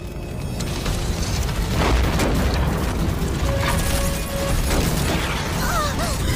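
A cartoon house-fire sound effect: a dense rush of burning flames with a deep rumble, growing louder over the first two seconds and then holding steady, under a dramatic music score.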